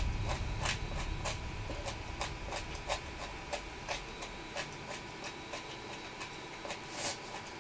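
Steady, evenly spaced ticking, about three ticks a second, like a clock, over a faint high steady whine.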